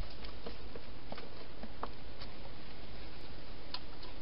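Soft, scattered clicks and rustles from a wild hedgehog moving at a garden feeding station, over a steady background hiss and low hum.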